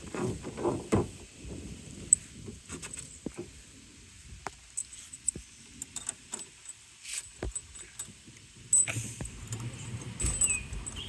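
Light metallic clicking and jingling of loose nuts and washers as they are threaded by hand onto bolts, in scattered small ticks with a louder knock near the end.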